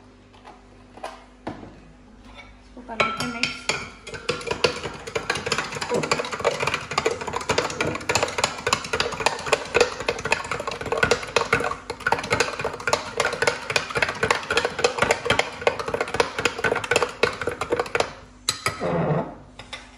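Metal spoon stirring sugar into milk in a glass jug, clinking rapidly and continuously against the glass. The clinking starts about three seconds in and stops near the end.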